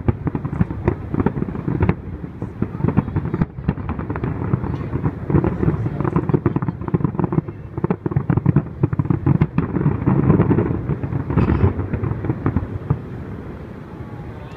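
Fireworks finale: a dense, rapid barrage of low booms and crackles that dies away near the end.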